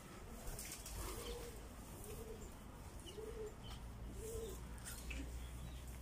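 A pigeon cooing: five short coos about a second apart, each rising and then falling in pitch, over a low rumble.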